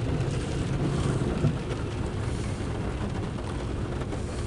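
Loaded coal train's hopper cars rolling past, a steady low rumble heard from inside a closed vehicle, with one brief louder knock about one and a half seconds in.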